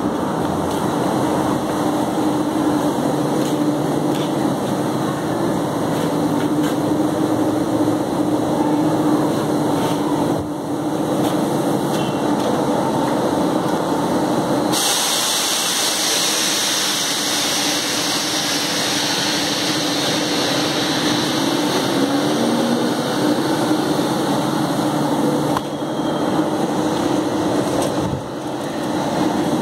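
Steady running din of plastic drum factory machinery, with a low hum. About halfway through, a loud hiss joins it for around ten seconds and then stops.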